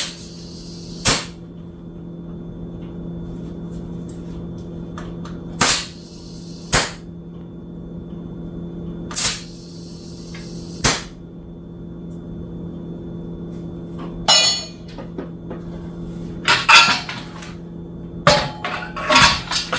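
Compressed air from an air chuck going into a dirt bike's tube-type rear tire to seat the bead: three short blasts, each a sharp hiss of about a second, over a steady low hum. Sharp tool clatter follows in the last few seconds.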